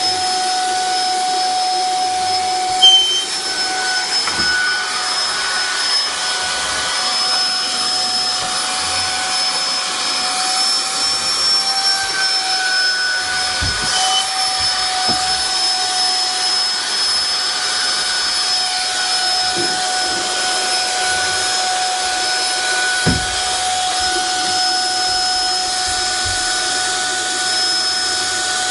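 Vacuum cleaner running steadily with a high whine, its pitch wavering slightly now and then. There is a brief sharp louder sound about three seconds in and a couple of faint knocks later.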